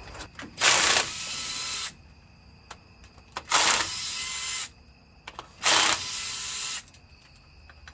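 Cordless power tool run in three bursts of about a second each, each starting hardest, as it works the bolts on the timing-chain cam sprocket.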